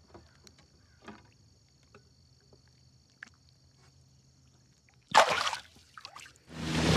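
A released largemouth bass hitting the water and kicking away: one short loud splash about five seconds in. Near the end a loud, steady rush of water with a low motor hum under it begins, a boat running through spray.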